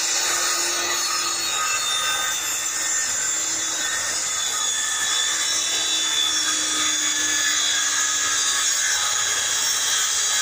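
Electric circular saw cutting through plywood: a steady loud blade-in-wood noise with the motor's tone sinking slowly as the cut goes on.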